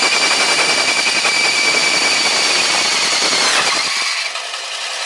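The flying saw's steel cutoff disc on a door-frame roll forming machine cutting through the steel profile: a loud grinding with a steady high whine and a fast rattle. About four seconds in, a falling tone is heard and the sound thins out briefly.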